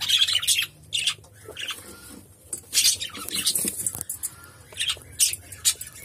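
Male cockatiel giving a series of short, harsh squawks at the nest box entrance, about six scattered through the few seconds.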